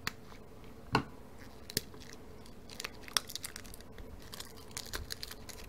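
Light clicks and crinkles of plastic being handled: a TV remote, its slide-off battery cover and its batteries turned over in the hands. A faint steady hum runs underneath.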